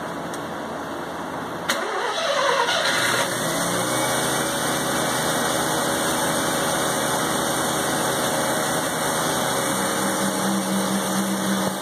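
1984 Mazda RX-7's 12A two-rotor rotary engine cold-starting on choke after sitting 13 years. A click about two seconds in, a moment of starting, then the engine catches and settles into a steady idle.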